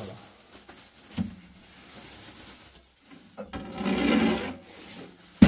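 Household handling noises: a knock about a second in, a rubbing, scraping sound lasting about a second past the middle, and a sharp knock near the end.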